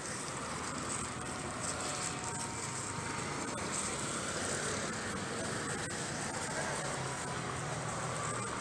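Steady outdoor background noise with a few faint ticks.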